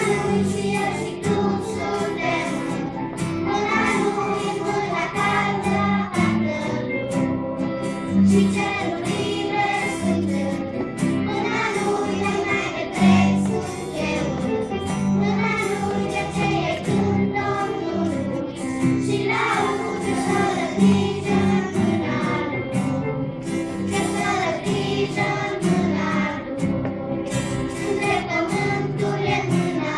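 Children's choir singing a song together, with strummed acoustic guitar accompaniment.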